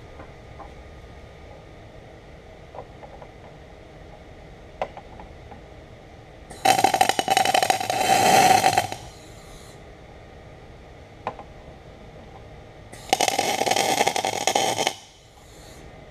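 Wire-feed welder laying two short welds, each a steady crackling arc of about two seconds: one near the middle and one near the end. Faint clicks come from handling the gun between them.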